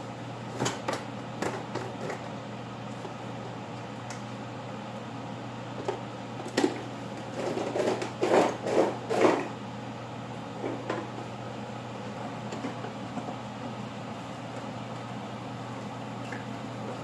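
A steady low hum from a kitchen appliance, with a few sharp clicks about a second in and a run of clattering handling noises around the middle.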